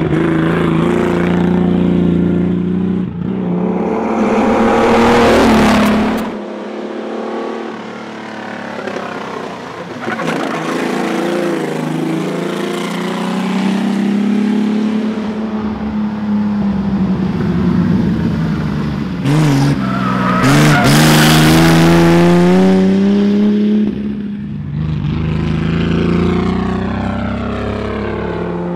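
The engine of a 1941 GMC Jimmy Special rally car at full stage pace, revving up hard and falling away again and again as the driver accelerates, lifts and shifts between corners. It climbs to its loudest twice, about five seconds in and again past twenty seconds, with a sudden drop just after six seconds as the driver lifts off.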